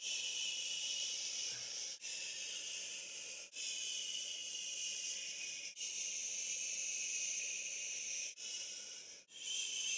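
Steady hiss, mostly high-pitched, broken by brief dropouts every one to three seconds.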